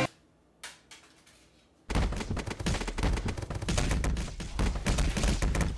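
About two seconds of near silence with one faint click, then a long, rapid run of loud cracks and deep booms, like a burst of machine-gun fire.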